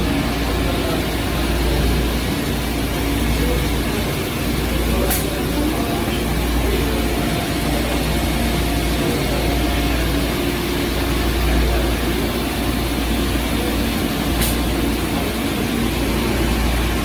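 Steady running noise of a Tsugami CNC Swiss-type lathe machining with coolant flowing: a low hum with a few steady tones and a hiss over it. Two short sharp ticks, about five seconds in and near the end.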